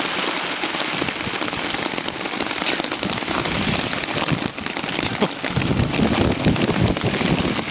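Rain falling on a nylon tent flysheet and tarp overhead, a dense crackle of drops on the fabric that grows a little louder about five seconds in.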